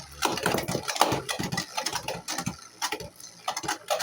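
Two 3D-printed plastic Beyblade spinning tops, Cosmic Smite and War Smite, spinning and clashing in a stadium: rapid irregular clicks and knocks as they strike each other and the walls.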